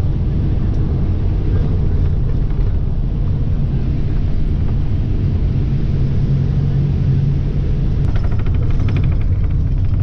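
Tour bus engine and road noise heard from inside the cabin: a steady low rumble, with a brief rapid rattling about eight seconds in.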